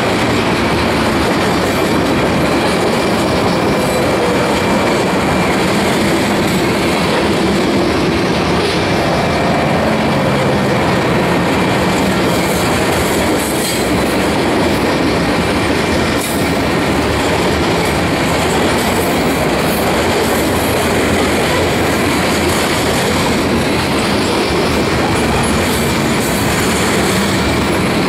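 Freight train of tank cars and covered hopper cars rolling steadily past at close range, steel wheels running over the rails, with a faint steady high tone underneath.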